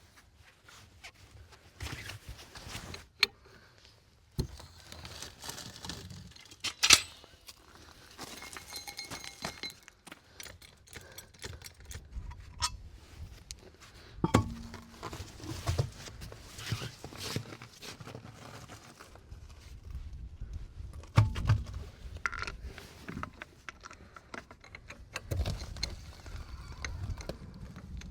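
Scattered metallic clinks, jangles and thunks of wheel bolts and hand tools during a wheel change done by hand, without an impact gun. One brief metallic ring about eight seconds in, and a few heavier thumps later on.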